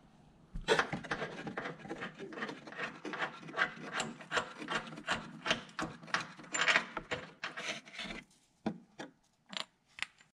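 A loosened body-mount bolt on a 1966 Corvette being worked out of its mount: a quick run of short metallic scraping strokes, several a second, lasting about seven seconds, then a few separate clicks near the end.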